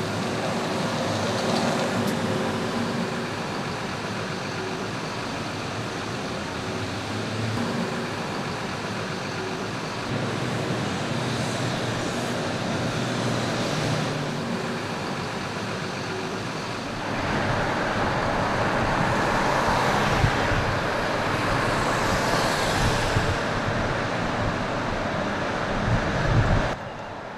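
Mercedes-Benz Citaro city bus driving along a street: steady engine and road noise with a faint hum, louder and rougher about two-thirds of the way through, dropping suddenly near the end.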